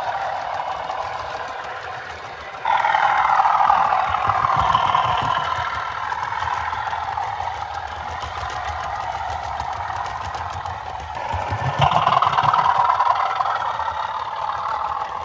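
Bachmann Class 37 model locomotive's DCC sound decoder playing a diesel engine through its small onboard speaker. It runs steadily, with a sudden louder surge of engine sound about three seconds in and again near the end, each easing off over a few seconds.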